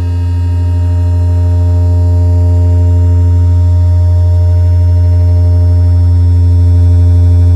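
Electronic soundtrack music: a loud, sustained low synthesizer drone with held higher tones above it, growing slowly louder.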